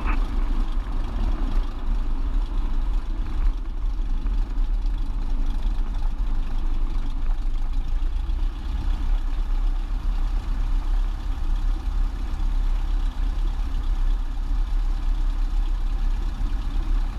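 Piston engine of a single-engine light aircraft running steadily at low power while the plane rolls out and taxis, heard inside the cabin as a constant deep drone.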